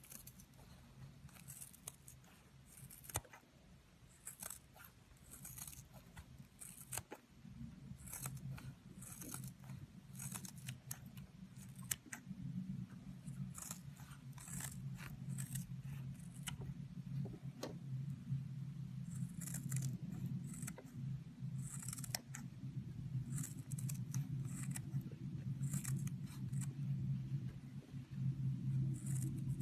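Scissors cutting repeatedly through a kitchen scrub sponge: crisp, crunchy snips as the blades bite through the abrasive blue scouring-pad layer and the yellow foam. A steady low hum runs underneath and grows louder in the second half.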